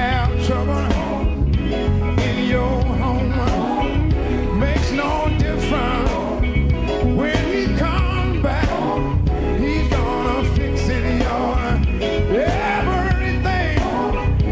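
Live gospel quartet music: male voices singing over a band with electric guitar and bass, the lead vocal sliding and bending through runs.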